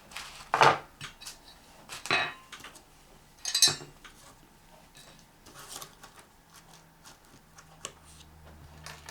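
Small hand tools such as a saw, drill bits, an awl and a screwdriver being picked up and set down, clinking against each other and the table: three louder clinks in the first four seconds, then lighter clicks.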